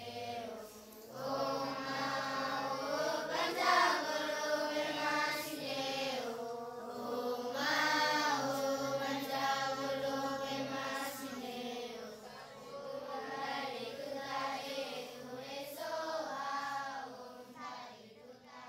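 A voice chanting in long, held notes that slowly waver and glide in pitch.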